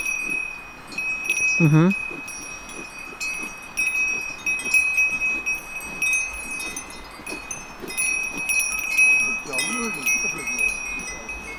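Several metal cowbells on grazing cattle, clanking and ringing unevenly together, with fresh strikes every moment.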